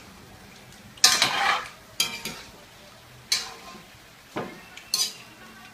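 A metal spoon stirs chopped turkey in a metal pot, clanking and scraping against the pot's side about five times, roughly once a second. The first stroke is the loudest.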